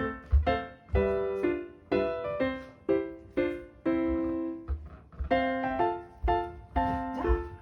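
Background music: a light piano-style keyboard tune with a steady beat.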